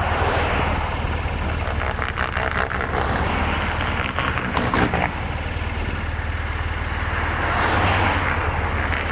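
A motor vehicle engine running steadily with a constant low hum, with rougher bursts of noise between about two and five seconds in.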